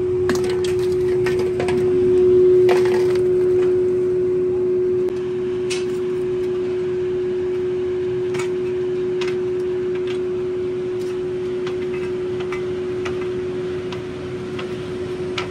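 Steady machine hum at one unchanging pitch, swelling a little about two seconds in, under scattered sharp clinks and knocks of rough lumps being handled and a long iron rod being worked at a foundry furnace. The knocks come thickest in the first few seconds and then every second or so.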